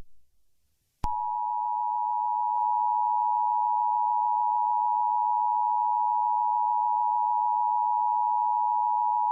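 Emergency Alert System attention signal: a loud, steady two-note alarm tone that starts about a second in and cuts off suddenly near the end.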